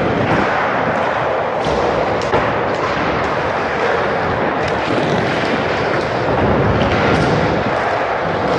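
Skateboard wheels rolling around a skatepark bowl, a steady loud rumble with a few light clacks.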